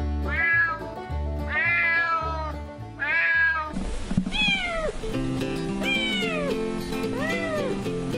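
A cat meows three times, then a tabby kitten meows about three times, each call rising and falling in pitch, over background music.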